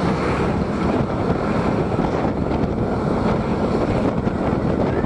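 Wind rushing over a helmet-mounted microphone on a moving motorcycle, with the Honda RS125 FI's single-cylinder four-stroke engine running underneath. It holds steady and loud throughout.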